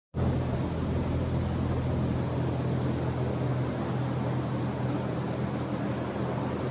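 Steady mechanical drone: a constant low hum under an even rushing noise, unchanging throughout.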